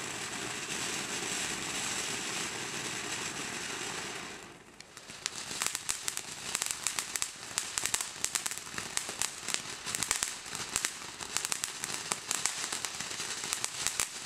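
Consumer fireworks going off: a steady hiss for about four and a half seconds, then after a brief lull a long run of rapid crackling pops.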